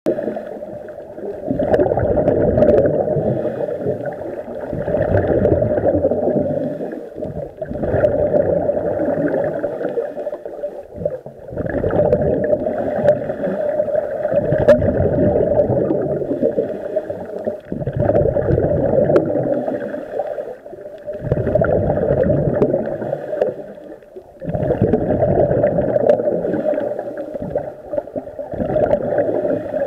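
Scuba regulator exhaust bubbles heard underwater: a muffled bubbling rush that surges with each exhaled breath, about eight surges of two to four seconds with short lulls between.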